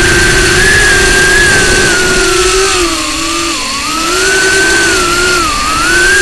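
Small FPV quadcopter's brushless motors and 2-inch Emax Avan propellers whining in flight, recorded on board. The pitch drops and recovers twice, about halfway through and again near the end, as the throttle is eased and opened again.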